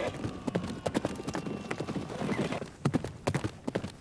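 Horses galloping: a quick, irregular run of hoofbeats.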